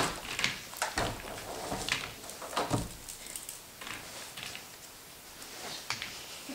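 Scattered light clicks and taps of toy noodle sticks being laid across a small plastic game bowl and dropped onto a plastic tablecloth, with soft rustling between them.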